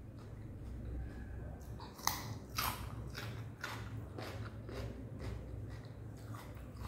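Crisp bites into a piece of raw cucumber, two sharp crunches about two seconds in, followed by steady chewing with softer crunches.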